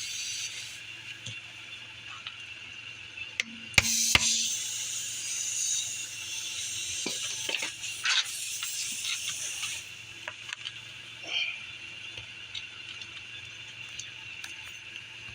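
Air hissing out of a tire's puncture hole while a plug repair tool is worked into it, with a sharp knock about four seconds in and small scraping clicks of the tool.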